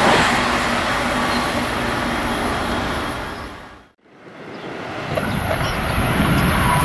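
Rushing wheel-and-rail noise of a passing train, dying away to near silence about four seconds in, then rising again as another train approaches.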